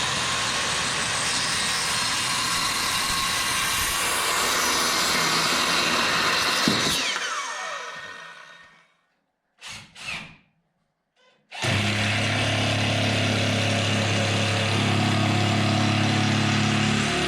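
Circular saw (skill saw) cutting wood, then its motor winding down with a falling whine after the trigger is let go. After a short pause with a couple of brief noises, a power tool runs steadily again for about six seconds and stops abruptly near the end.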